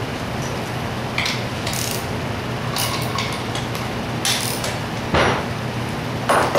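Metal hand tools clicking and clinking against a Zenoah G270 engine as its clutch is taken off: a handful of sharp separate clicks, the loudest two near the end, over a steady low hum.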